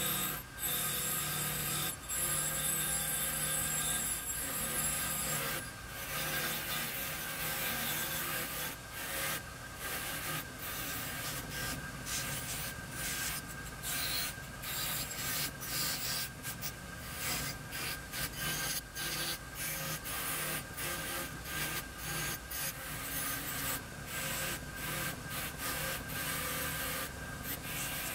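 Small metal curling-iron parts pressed against a spinning polishing wheel on a bench motor: a steady motor hum under a rasping rub that breaks off and returns many times as the pieces are pressed, lifted and turned.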